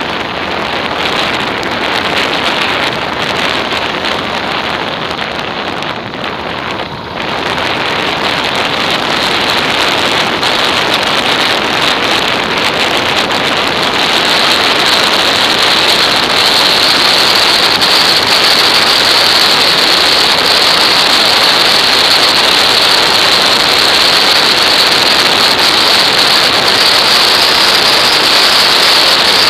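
Wind rushing over a Nilox action camera's microphone on a moving motorcycle, a steady loud rush with no clear engine note. It dips briefly about six seconds in, then grows louder, and louder again around the middle.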